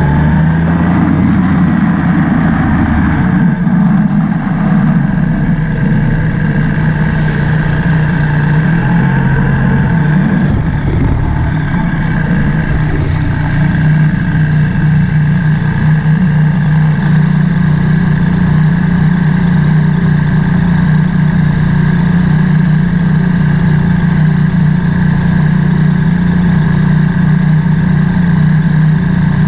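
Motorcycle engine running as the bike rides and slows, then idling steadily from about twelve seconds in.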